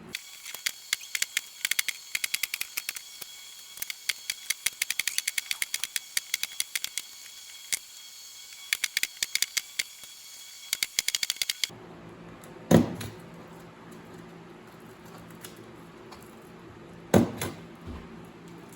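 Rapid, irregular light clicking for most of the first twelve seconds. After it come two loud, sharp single snaps, about four seconds apart, from a hand stapler being pressed down to drive staples into a welding blanket.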